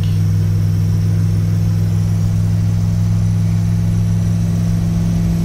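6.5-litre turbo diesel pickup cruising at highway speed in overdrive, heard from inside the cab: a steady, even, low drone of engine and road noise with no change in throttle.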